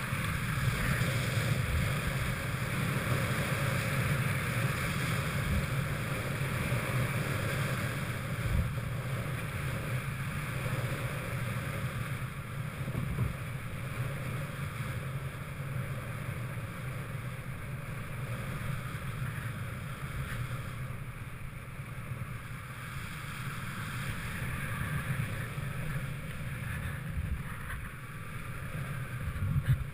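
Wind rushing over a body-worn camera's microphone under an open parachute canopy: a steady rush that eases gradually, with a brief louder gust near the end.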